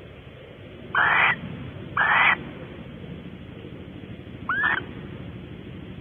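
Barn owl calling: three short calls, two about a second apart, then a shorter one about two and a half seconds later.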